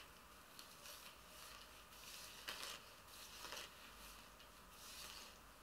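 Near silence with a few faint, brief soft rustles, hair being handled and sectioned by hand.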